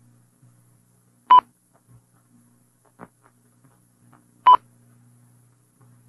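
Two short electronic beeps about three seconds apart over a faint low hum, with a soft click between them.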